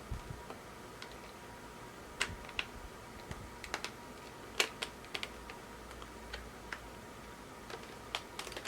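Irregular light clicks and taps of hard plastic videocassettes being handled, a dozen or so scattered sharp clicks with a few louder ones.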